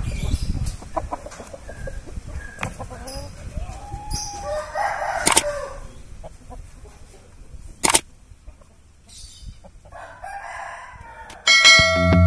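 Rooster crowing and clucking in a run of arched calls over the first five seconds, then a scratchy call later on. There are two sharp clicks in the middle, and guitar music comes in near the end.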